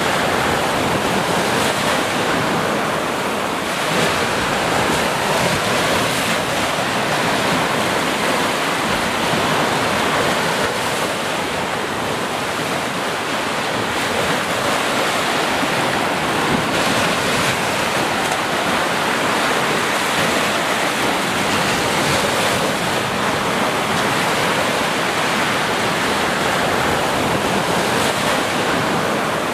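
Ocean surf: small waves breaking and washing up a sandy beach in a continuous, fairly steady rush of water.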